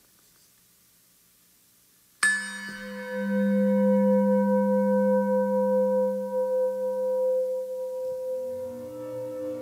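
Hand-held brass singing bowl struck once about two seconds in, then ringing on with a low tone that swells louder for a few seconds and clear higher tones above it. Near the end, other soft pitched tones come in under the ring.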